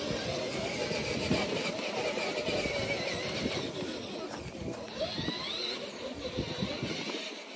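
Battery-powered Power Wheels ride-on toy truck driving over grass, its electric drive motors and gearboxes whining, the pitch wavering as it moves. A second ride-on toy runs close behind it.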